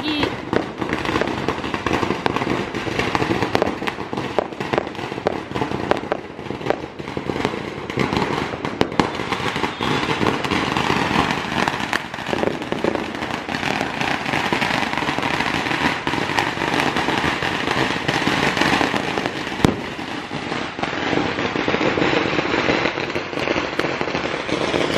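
Fireworks going off in the street: a dense, unbroken run of small bangs and crackling, with one sharper, louder bang late on.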